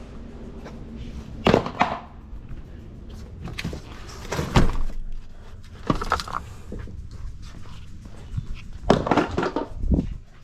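Irregular thunks and knocks of objects being handled and shifted around inside a cluttered truck cab, about half a dozen over ten seconds.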